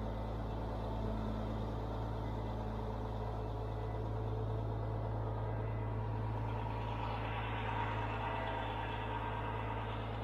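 A large crane's engine running steadily with a low drone. A higher rushing sound builds over it about two-thirds of the way in.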